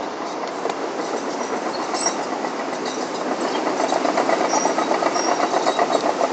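Fast, even mechanical clattering over a steady rumble, growing louder from about three seconds in.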